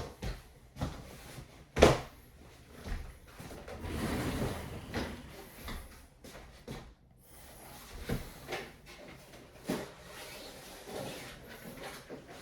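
Handling noises: a series of irregular knocks and clunks, the loudest about two seconds in, with a longer rustling scrape around four seconds in.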